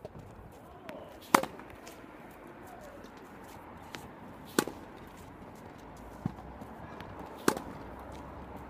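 Tennis ball struck three times with one-handed topspin backhands, a sharp pop from the racket strings about every three seconds. Before each hit comes a softer thud as the ball is dropped and bounces on the hard court.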